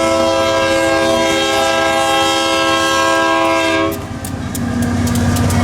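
Union Pacific GE AC44CW freight locomotive sounding one long blast on its multi-note air horn, which cuts off about four seconds in. After that, the locomotive's diesel engine runs and the train rumbles, with sharp clicks of wheels passing over rail joints.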